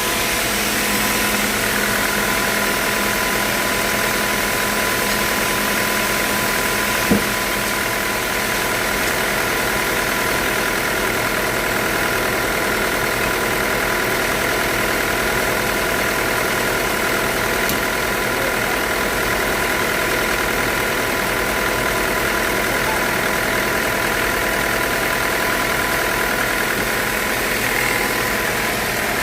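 Sawmill machinery running steadily with a constant whine, and a single sharp click about seven seconds in.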